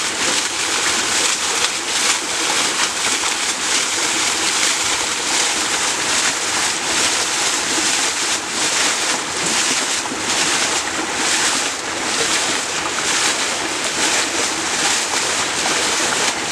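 Stream water being scooped and thrown by hand, a continuous heavy splashing of many overlapping throws.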